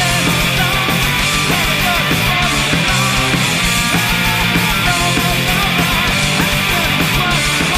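Alternative rock band playing live and loud, with bass guitar, electric guitar and drums going at a steady driving beat.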